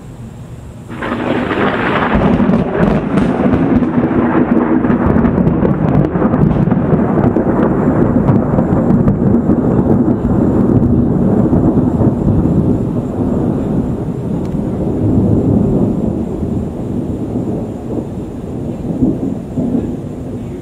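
Thunder from a dry thunderstorm: a sudden crack about a second in, then a loud rolling rumble that slowly fades over the following seconds.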